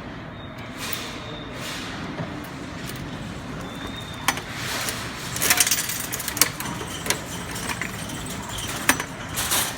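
Quarters clinking into a coin-operated vending machine and its coin mechanism clicking and rattling. A few sharp clicks come in a cluster about halfway through and again near the end, over a steady background noise.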